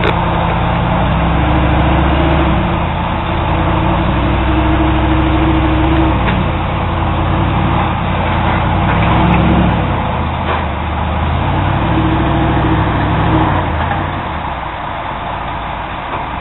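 A motor vehicle's engine running, its low pitch rising and falling several times.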